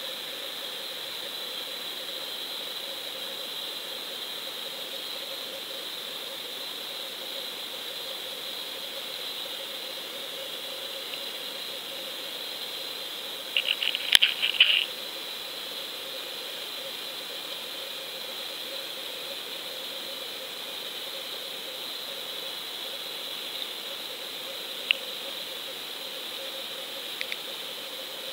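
Steady underwater hiss picked up by a GoPro sealed in its waterproof housing on the bottom. About halfway through comes a brief burst of sharp crackling clicks, and near the end a few single clicks.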